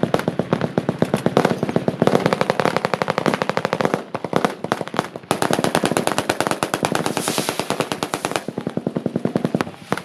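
Machine guns firing in long, rapid automatic bursts, shots packed closely together. The firing slackens briefly about five seconds in, then picks up again.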